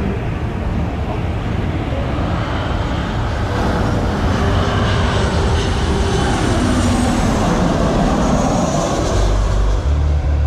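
Twin-engine Boeing 737 jet airliner on final approach passing low overhead: the engine noise builds to a loud steady roar with a whine, and the whine's pitch drops as the plane goes by. A heavy low rumble comes in near the end.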